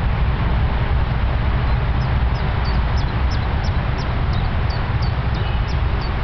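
Steady, loud low rumble with hiss. From about two seconds in, a small bird chirps a quick series of short, high, falling notes, about three a second.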